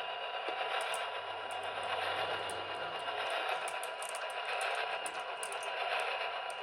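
Radio receiver static: a steady hiss with scattered crackles, no clear voice coming through, typical of a weak radio signal.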